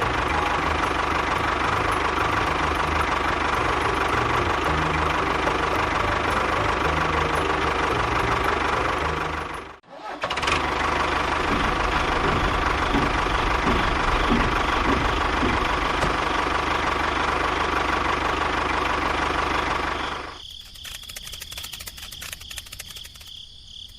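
A small engine running steadily. The sound cuts out briefly about ten seconds in and then resumes. Near the end it gives way to a quieter, rapid ticking.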